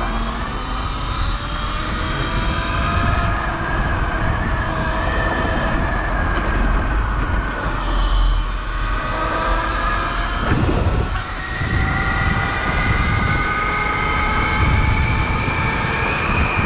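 Sur Ron electric dirt bike accelerating hard, its electric motor whine climbing steadily in pitch as speed builds toward 40 mph. The whine dips briefly about eleven seconds in, then climbs again, over steady low wind and road rumble.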